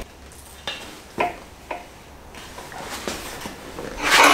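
A few light metallic clicks and knocks about half a second apart, then a louder clank near the end, as a bare BMW M52B28 engine block is turned over on its engine stand.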